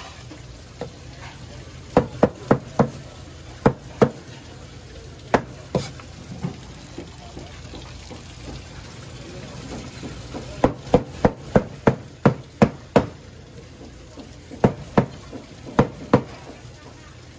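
Kitchen knife chopping a freshwater eel fillet into pieces on a cutting board: sharp knocks of the blade striking the board, in short quick runs of several strokes with pauses between.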